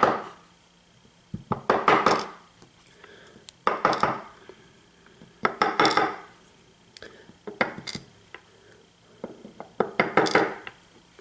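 Small metal lock parts (pins and springs from a disassembled padlock) clinking and rattling against a hard surface and tools in short clusters, about six times roughly two seconds apart.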